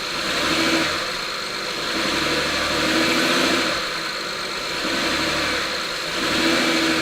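The 2008 Honda Pilot's 3.5-litre V6 is revved three times in drive while held on the brake, swelling and dropping back toward idle each time. This is an engine mount test that found the mounts still good.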